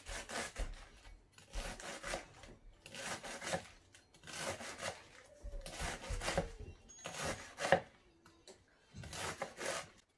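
Chef's knife shredding a head of lettuce on a wooden chopping board: rapid cuts in short runs of several strokes, with a brief pause between runs roughly every second and a half.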